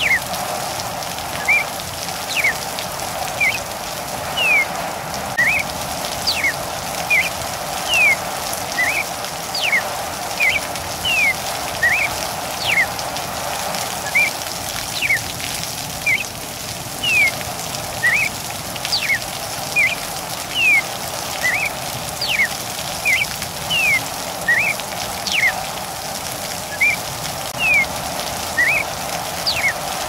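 Steady rain with a cardinal singing over it: a long run of short whistled notes that slur downward, about one a second.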